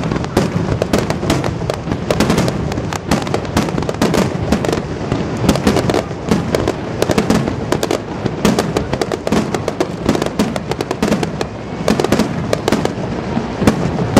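A dense, unbroken barrage of aerial firework bursts, many bangs and crackles a second overlapping, as in a rapid-fire starmine salvo.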